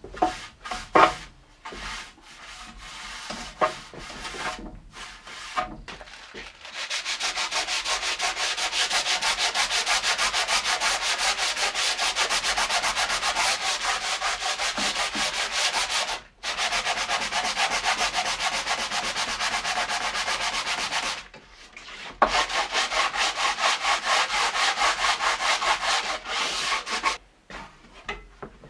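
Rapid, rhythmic back-and-forth rasping of a hand tool working wood, in long runs with a brief break about sixteen seconds in and a pause around twenty-one seconds. Scattered knocks and clatter come before the rasping starts about seven seconds in.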